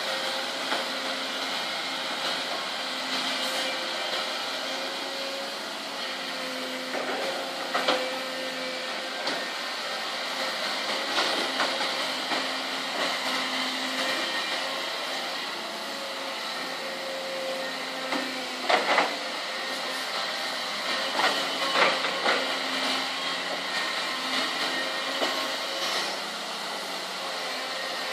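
2008 Hyundai Robex 300LC-7 excavator's diesel engine running steadily with its hydraulics working. Several sharp knocks come through, loudest about two-thirds of the way in.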